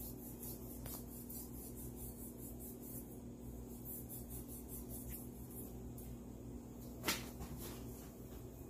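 Faint knife strokes slicing fat away from a raw beef brisket, over a steady low hum. A short sharp noise stands out about seven seconds in.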